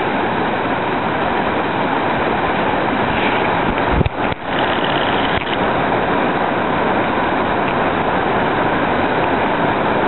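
River rapid rushing: a loud, steady roar of whitewater pouring over and around boulders, with a brief knock about four seconds in.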